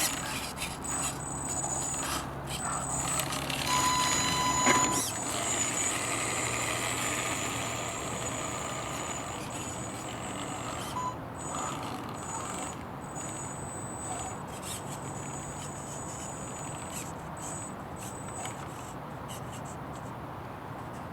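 A small electric RC crawler driving, its motor and gearbox giving a steady high whine over a low hum. A short pitched tone sounds about four seconds in.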